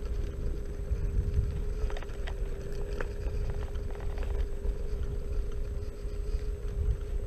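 Xiaomi Mi Scooter Pro 2 electric scooter riding at steady speed: a constant hub-motor whine over low wind and tyre rumble. A few sharp clicks and rattles come about two to three seconds in.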